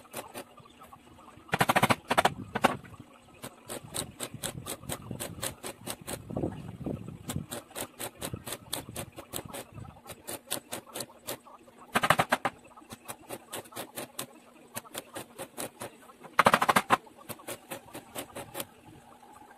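Stick (arc) welding on a steel door frame: the arc crackles and spits in quick irregular clicks, with three louder bursts of dense crackling, about two seconds in, around twelve seconds and around sixteen and a half seconds.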